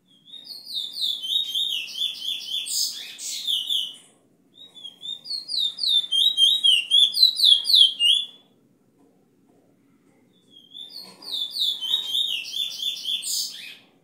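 A caged bullfinch sings three song phrases, each a fast run of short, high, repeated falling notes lasting three to four seconds, with brief pauses between them. It is a proven tutor bird whose song is used to teach young birds.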